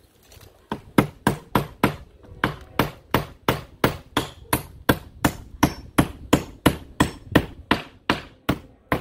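Claw hammer driving 8-penny vinyl-coated sinker nails by hand through wood lap siding into the studs. It is a steady series of sharp blows, about three a second, with a short pause after the first few.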